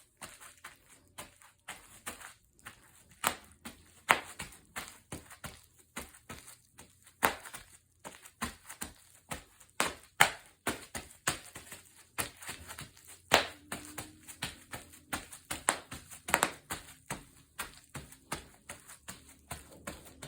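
Bubble wrap popping as it is stepped on: irregular sharp pops, a few a second, with some much louder than the rest.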